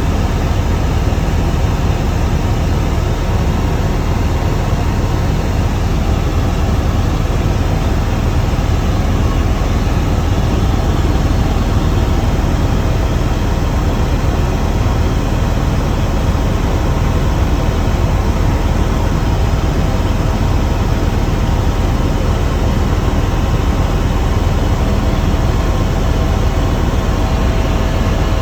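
Helicopter in flight, heard from on board: a steady, loud, deep drone of rotor and engine noise with a faint steady whine on top.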